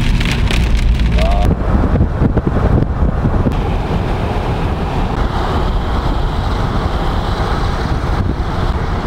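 Heavy storm rain and wind on a car, a loud steady rushing noise with a low rumble. For about the first second and a half it is a dense patter of rain, then it evens out.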